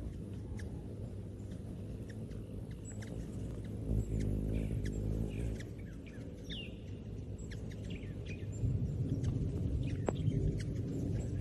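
Ruby-throated hummingbirds at a feeder: the low hum of their wings, with short high chirps and twitters scattered throughout.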